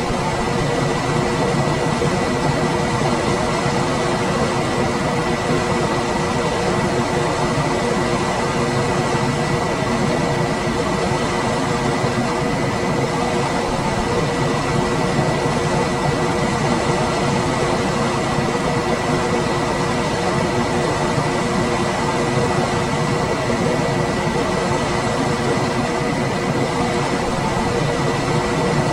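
Room air conditioner running steadily: even fan noise with a few constant hums and a thin high tone.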